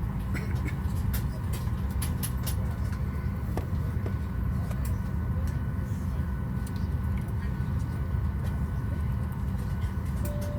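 Steady low rumble of a Boeing 737-800 cabin on the ground, with a faint steady whine above it and scattered small clicks.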